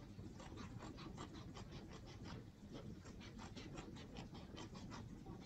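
Scissors cutting a long strip from a sheet of craft felt: a faint, steady run of snips, about four a second.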